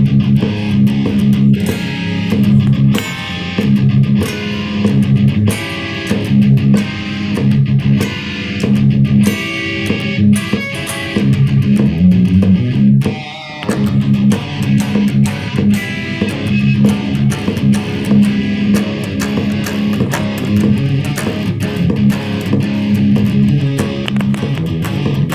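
Electric guitar played through a Zoom G1Xon multi-effects processor on a djent riff patch: a rhythmic riff of short, repeated low notes, with a brief break about thirteen seconds in.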